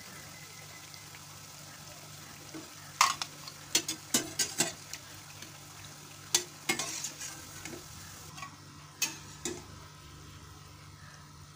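Vadas deep-frying in oil in a stainless steel pan with a faint steady sizzle, while a slotted steel spatula clinks and scrapes against the pan in several clusters of sharp metallic clicks.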